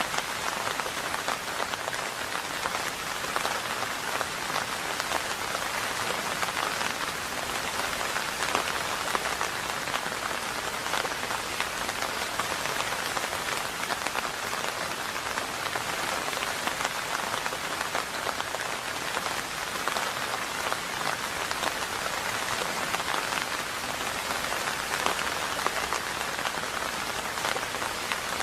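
Steady rain falling, a dense, even patter of drops with no let-up.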